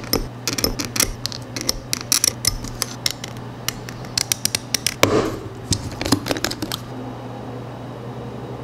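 Hobby knife blade cutting and scraping a plastic model kit part along tape: a quick, uneven run of short, sharp scratchy clicks that stops about seven seconds in. A steady low hum runs underneath.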